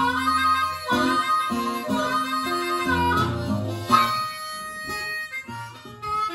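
Blues harmonica played cupped in the hands at a microphone, with held and bent notes, over an acoustic guitar's steady blues accompaniment.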